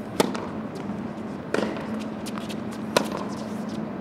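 Tennis racket striking the ball three times, about a second and a half apart: a serve and the first two shots of the rally, with fainter ticks between and a steady low hum underneath.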